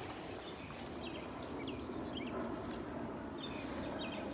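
Small birds chirping: short high chirps repeating every half second or so, over a steady low background noise.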